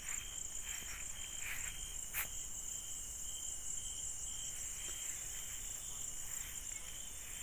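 Night chorus of crickets: a steady high chirring with lower chirps pulsing through it, and one sharp click about two seconds in.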